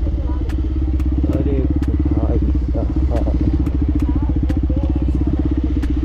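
Bajaj Pulsar 125 single-cylinder motorcycle with an aftermarket Akrapovic exhaust running at low speed over a rough dirt track, a steady pulsing engine note with scattered sharp clicks and knocks from the bumpy ground.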